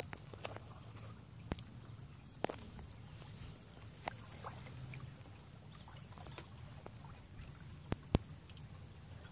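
Faint water lapping and sloshing against shoreline rocks, with a few sharp clicks scattered through it.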